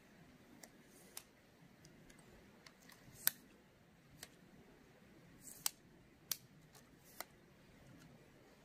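Faint, scattered sharp clicks and snaps of camera equipment being handled while setting up for a shot, about eight in all, irregularly spaced, the loudest about three seconds in.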